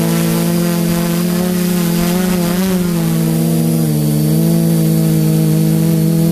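Quadcopter's four Sunnysky 980 kV brushless motors spinning 10x4.5 APC propellers in low flight: a steady, pitched hum. The pitch wavers a little about halfway through and dips slightly about four seconds in, as the throttle changes.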